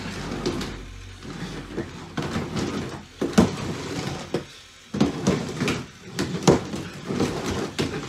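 Lego combat robots clattering and knocking together as they push and grapple, a string of irregular sharp plastic knocks and scrapes against the arena floor and wall.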